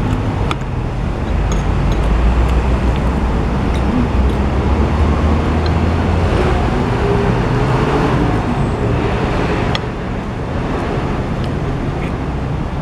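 Steady road traffic on a major highway, a constant rush with a low engine rumble that swells as a vehicle passes and eases off near the end. A few faint clicks of cutlery on a plate.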